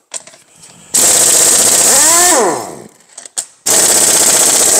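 Power impact wrench hammering bolts loose on an S44 engine block, in two bursts of about a second and a half each, its motor winding down in pitch as each burst ends.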